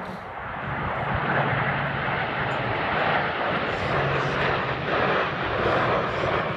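Jet engine noise from a nine-ship formation of CT-114 Tutor jets flying past, a steady rush that grows louder about a second in and stays loud.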